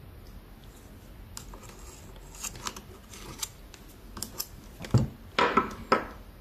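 Small tools and parts handled at a workbench: scattered clicks and taps, then a louder cluster of knocks and scrapes about five seconds in.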